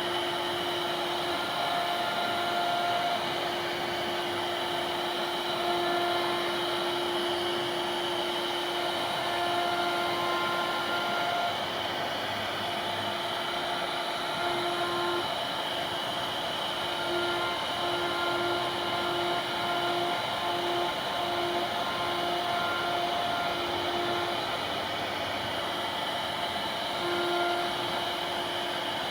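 CNC router running steadily on wood, a constant hiss under a whine at one pitch that cuts in and out in short stretches during the second half.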